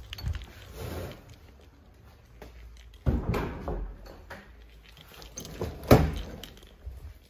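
A door's metal knob being grasped and turned, with a sharp click near the end as the latch works, after a clatter of handling noise about three seconds in.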